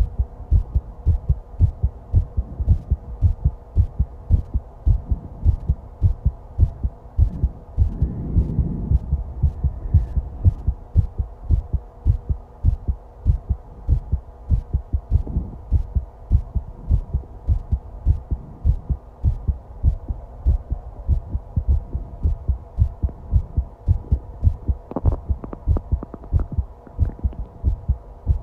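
Human heartbeat heard close up from the chest of a person lying at rest: a steady, even rhythm of low thumps over a faint constant hum. About eight seconds in, a short low gurgle of the stomach growling rises under the beats.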